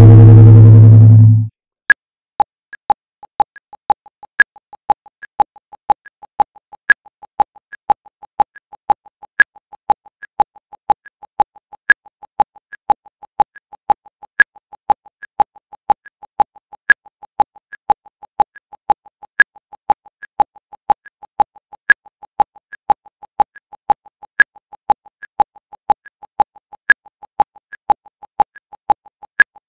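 Synthesizer soundtrack: a loud low note cuts off about a second and a half in, then a steady electronic ticking of short pitched blips, about three a second, with a louder, higher blip every two and a half seconds or so, like a clock counting down.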